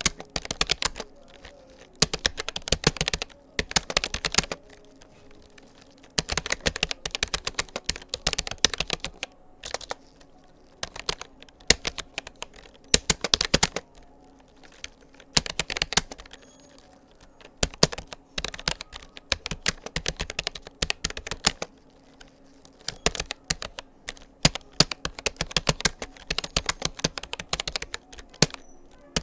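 Typing on a Rapoo computer keyboard: rapid runs of key clicks in bursts of a second or two, broken by short pauses between words and phrases.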